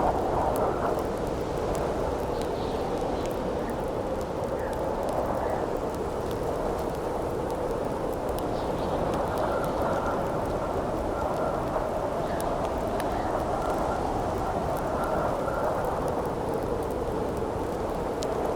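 Howling wind blowing steadily, swelling and easing slowly, with the faint scattered crackles of a burning campfire.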